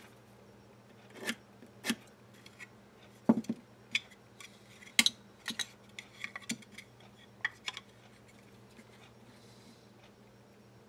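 Scattered light clicks and taps of a steel square and a pen being handled and set against a project-box panel on the bench, the sharpest about three and five seconds in. A faint steady hum runs underneath.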